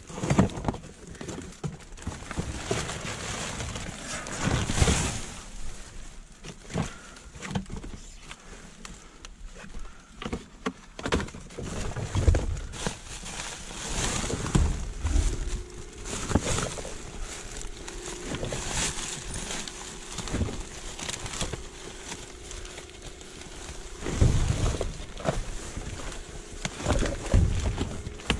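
Plastic trash bags rustling and crinkling as items in a dumpster are pushed around and shifted by hand, with scattered knocks and a few heavier thumps.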